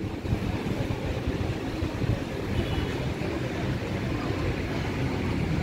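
Low, steady rumble of wind buffeting the microphone of a handheld camera as it is carried along outdoors.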